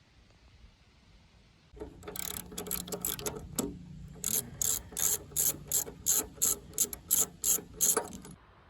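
Socket ratchet wrench clicking as it turns the lawnmower's spark plug. It starts about two seconds in with quick clicks, then settles into a regular run of about three clicks a second, and stops just before the end.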